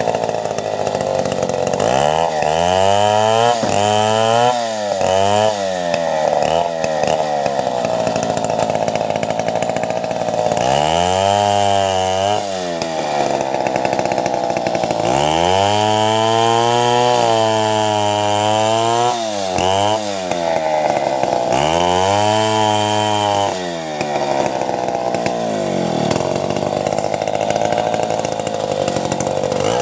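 Two-stroke chainsaw running hard while ripping timber into boards. The engine note rises and falls over and over, dipping in pitch and recovering in several long swells.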